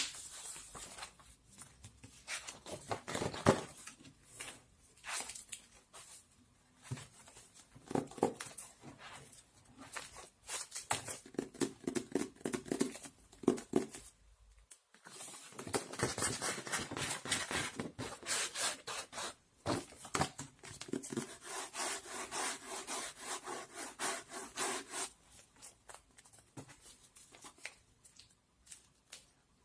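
Close-up handling sounds: irregular rubbing, rustling and light taps of objects being handled by hand, denser in the second half, with a brief drop-out about halfway.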